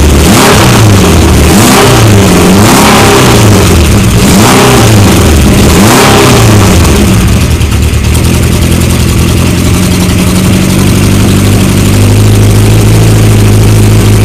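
Honda CB750 K1's air-cooled inline-four engine, loud, with the throttle blipped about five times over the first seven seconds, each rev rising and falling in pitch, then settling to a steady idle.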